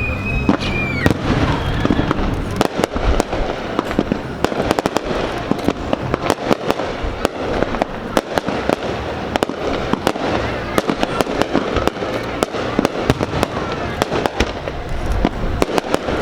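Fireworks show: a dense, rapid crackle of many small bursts going off together, with a whistling tone that ends about a second in.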